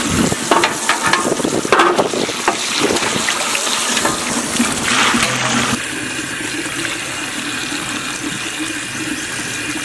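Tap water running from a washbasin faucet and splashing onto a steel tray being rinsed. After about six seconds it changes to a steadier stream pouring over raw chicken pieces on a plate in the sink.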